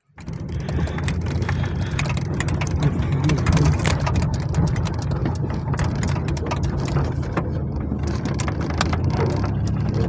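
Vehicle driving over a rough dirt track, heard from inside the cabin: a steady low engine and road rumble with many small rattles and knocks as it bounces over the ruts.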